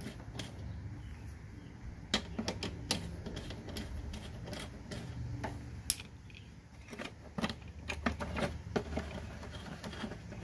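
Scattered clicks, taps and knocks of hand tools and parts being handled while the top cover of a Toro Super Recycler mower's drive is taken off, over a low steady hum. The clicks come in a cluster near the middle and a busier run near the end.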